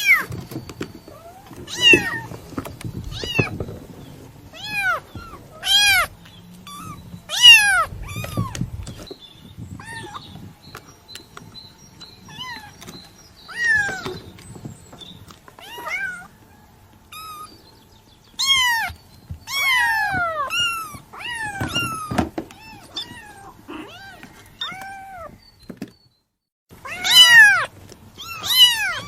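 A kitten mewing over and over in short, high-pitched calls that rise and fall, with irregular pauses and a cluster of quick mews near the end.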